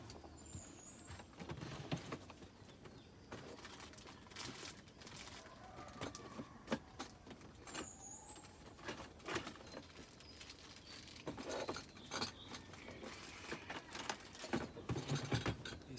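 Scattered light knocks and clatter, with two brief high bird chirps, about a second in and about eight seconds in.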